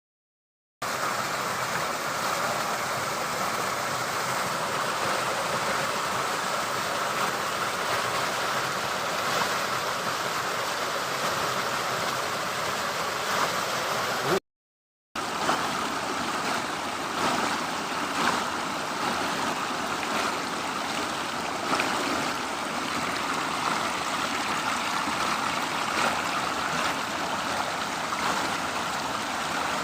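River waterfall: a steady rush of falling and splashing water, broken by a brief silence about halfway through.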